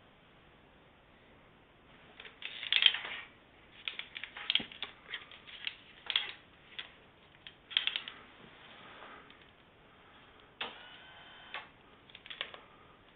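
Electric adjustable bed base making a loud noise, its parts rubbing and grinding against each other: a run of irregular creaks, clicks and scrapes, then about a second of a steady squeal and a few more clicks near the end. It is a fault that the owner says two repair visits have not fixed.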